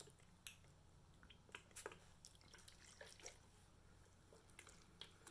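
Near silence: room tone with a few faint, short clicks and ticks scattered through it.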